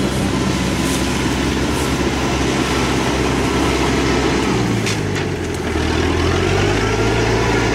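Rice combine harvester's engine running steadily; its note dips about five seconds in, then settles back at a slightly different pitch.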